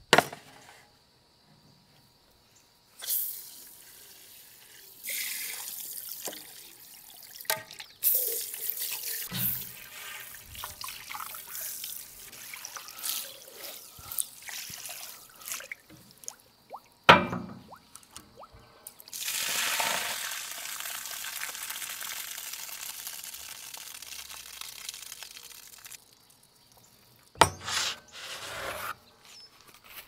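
Water pouring and splashing in several spells, the longest a steady pour of about seven seconds, with a few sharp knocks in between.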